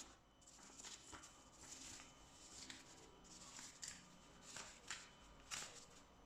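Faint rustling and scraping of packaging being handled, in a string of short brushes, the loudest near the end.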